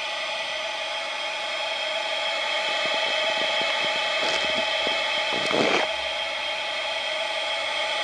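A steady mechanical whir with a high hum, from the model steam launch's machinery running on test. Light clicks come in from about three seconds in, and a short noisy burst sounds about five and a half seconds in.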